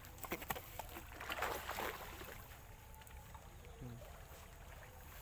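Freshly caught catfish handled on grass: a few quick slaps in the first second as it flaps, then a short rustle of grass as it is gripped and lifted.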